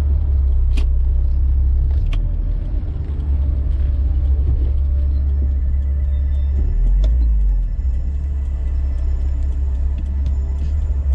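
Car being driven, a steady low rumble of engine and road noise, with a few sharp clicks near the start and a brief shift in the rumble about seven seconds in.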